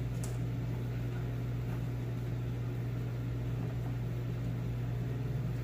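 A steady low hum with an even hiss underneath, unchanging throughout.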